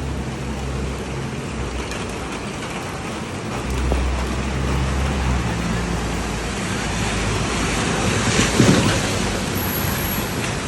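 Heavy rain pouring steadily on a city street, with the low hum of passing traffic underneath and a brief louder rush of water about eight seconds in.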